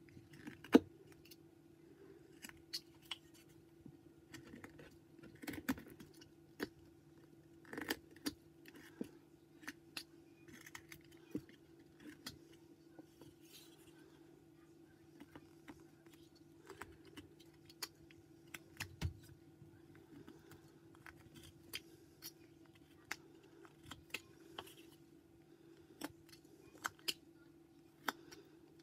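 Carving knife slicing white pine in short strokes: irregular crisp snicks and clicks as the blade cuts and chips come away, over a faint low steady hum.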